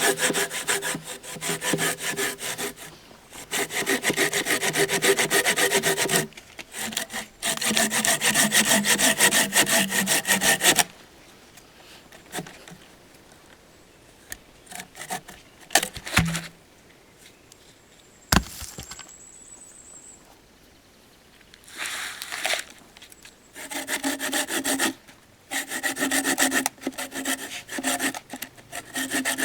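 Folding hand saw cutting through the trunk of a dead, dry pine, with rapid back-and-forth strokes of the blade in the wood. It saws in spells: a long run of strokes with one short break, a pause of several seconds in the middle, then more short runs near the end.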